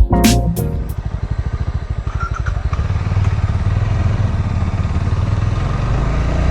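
Motorcycle engine running steadily while riding, a fast even low pulse that grows slightly louder. A short tail of music ends about a second in.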